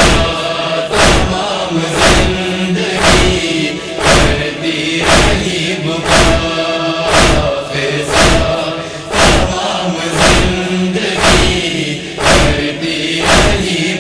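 Noha interlude: a backing chorus holds a sustained chanted drone, over steady rhythmic thumps of matam (chest-beating) about once a second.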